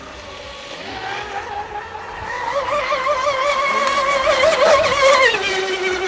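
Radio-controlled offshore racing boat's motor running flat out: a high, wavering whine that grows louder as the boat approaches, then drops sharply in pitch about five seconds in.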